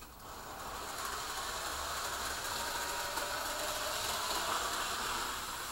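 Small electric model train engine running on the layout's track: a steady mechanical whirr of motor and gears that builds over the first second, then holds.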